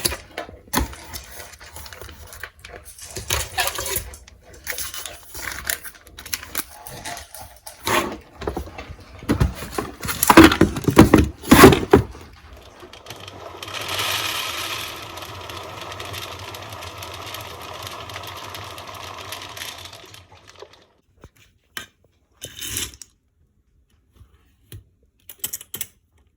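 Clicks, knocks and rustling of dog food packaging being handled, then about seven seconds of a steady rattling stream as dry dog food is poured into a container, followed by a few stray knocks.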